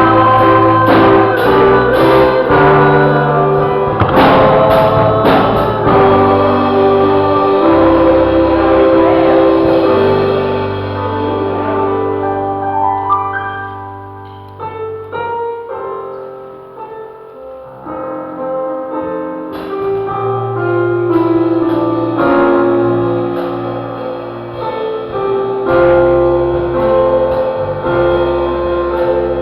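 Gospel church music led by keyboard, with a steady beat and some singing at first. It drops quieter just past the middle, then picks back up.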